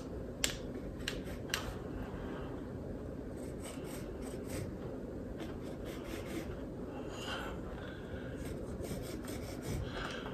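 Faint scattered clicks and light rubbing as a tape measure is held against the arch and a pencil marks the surface, over a steady low background noise.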